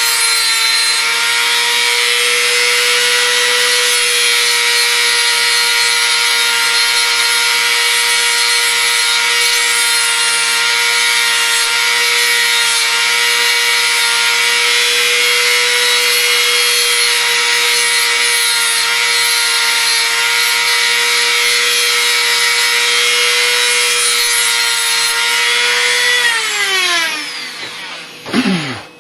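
Dremel rotary tool with a cutoff wheel running at high speed and cutting into a carbon steel pick blank, a steady high whine over a harsh grinding hiss. Near the end the tool is switched off and its whine falls away as the motor spins down.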